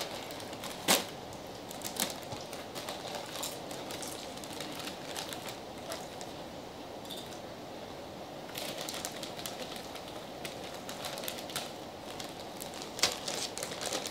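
Plastic chip bags crinkling and rustling as they are handled and hands dig into them for chips, in irregular sharp crackles; the loudest crackle comes about a second in and another near the end.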